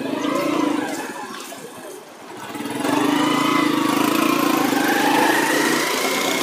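A small motor vehicle's engine running, swelling up about two and a half seconds in and then holding steady and loud.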